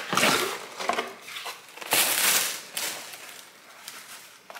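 A package being torn open by hand, its wrapping rustling and crinkling in a few loud bursts. The biggest burst comes about two seconds in, then quieter handling follows.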